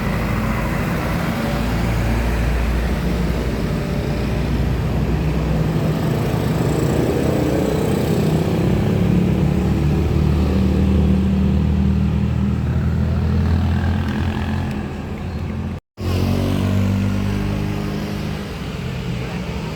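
Large diesel tour bus engine running close by, its low drone growing louder through the middle and easing off. The sound cuts off abruptly about sixteen seconds in, then a similar engine sound carries on.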